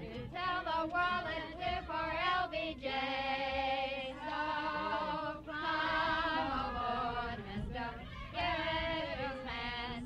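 A group of voices, women's most prominent, singing a song together in long held notes with a wobbling vibrato.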